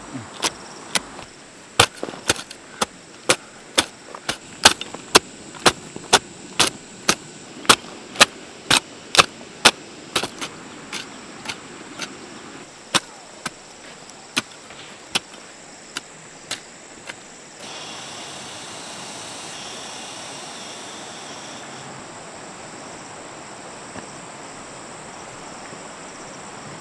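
A garden hoe chopping into the soil to dig a planting row, with sharp strikes about two a second that thin out after about ten seconds and stop about seventeen seconds in. A steady hiss follows.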